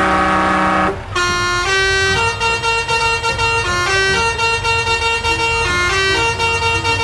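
A toy truck's electronic sound effects: a horn honk held for about a second, then a beeping electronic tune of short steady notes.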